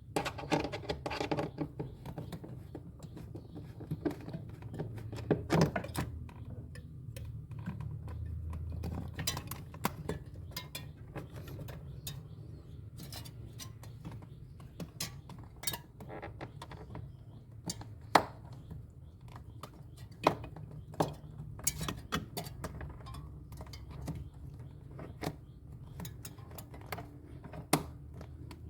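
Irregular clinks, clicks and knocks of hard tools and parts being handled, over a low steady hum.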